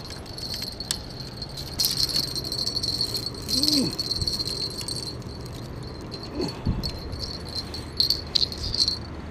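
Insects chirring steadily at a high pitch, swelling into louder rattling stretches several times. Two short, low swooping sounds come about three and a half and six and a half seconds in.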